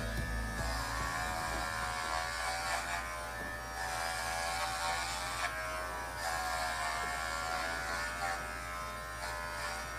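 Cordless electric dog clippers running with a steady buzz as they trim a dog's curly coat.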